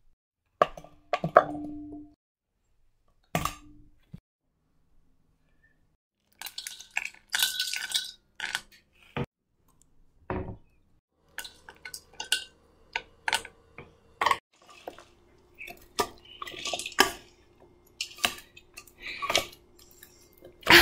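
Food and utensils clanking in a stainless steel mixing bowl: a few separate knocks, then a quick run of clicks. From about halfway through, a metal utensil stirs and scrapes against the bowl with repeated clinks.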